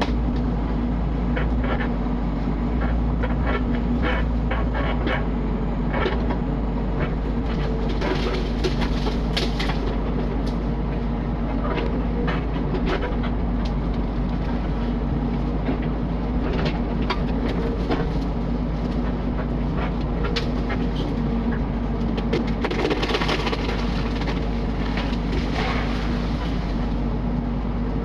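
Mini excavator's diesel engine running steadily under work while it stacks heavy logs, with scattered knocks and cracks of wood and metal and a couple of longer noisy rushes.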